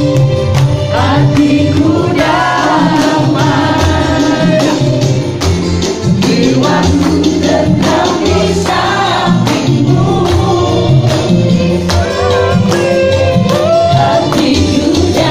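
A group of people singing together over music, with hand-clapping in a steady beat.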